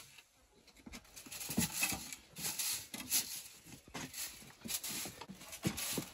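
Stiff broom sweeping a concrete floor in short scratchy strokes, about two a second, starting about a second in.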